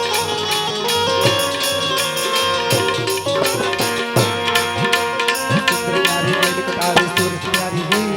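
Instrumental interlude of Gujarati kangopi devotional folk music: a held melody with sustained tones over a quick, even hand-drum rhythm whose low strokes bend down in pitch.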